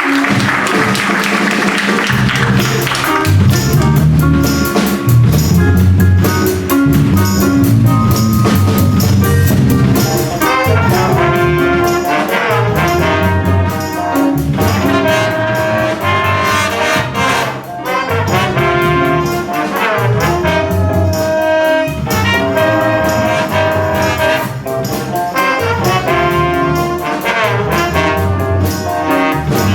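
Jazz big band playing a funky groove chart: trumpets and trombones play punchy horn lines over bass and drum kit. Applause fades out at the start, and the bass line comes in about two seconds in.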